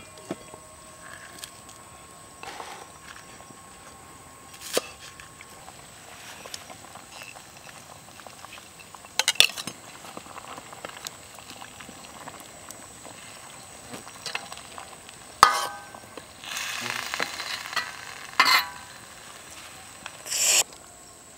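Cow feet soup bubbling in a steel wok over a campfire, with a metal ladle clinking and scraping against the pan. There are scattered sharp clicks, and several louder short bursts of stirring in the second half.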